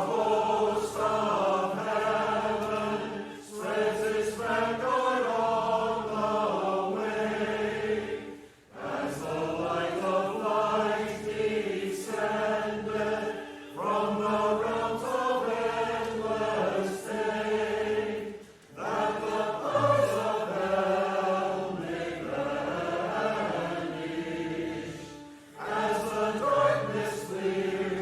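Church choir singing in phrases, with short breaths between them.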